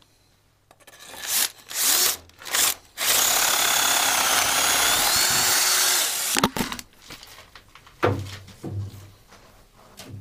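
Electric drill boring a hole through a brick cellar wall at a mortar joint. It runs in a few short bursts, then drills continuously for about three seconds and stops suddenly, followed by a few knocks and rattling.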